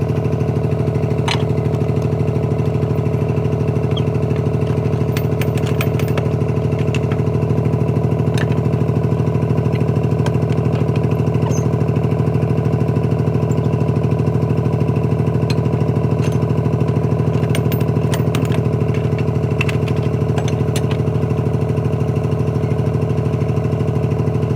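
A motor or engine running steadily at constant speed, a low even hum, with a few light clicks scattered through it.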